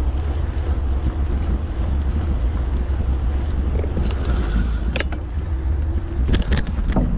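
Wind buffeting the microphone of a camera on a moving bicycle, a steady low rumble. Over the last couple of seconds, a few sharp knocks as the tyres cross onto the wooden-decked bridge.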